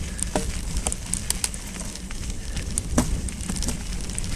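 Mountain bike rolling fast down a dirt singletrack: knobby tyres crunching over dirt and twigs, with scattered clicks and rattles from the bike, and a couple of sharper knocks over rough ground. A steady low rumble of riding noise and wind runs underneath.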